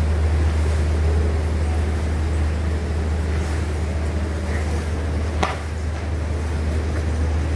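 Waterfall's steady rushing roar, heavy in the deep low end, with one short knock about five and a half seconds in.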